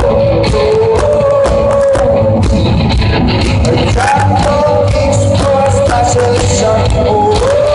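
Rock band playing live, loud: a sung melody with held, gliding notes over drums and guitar.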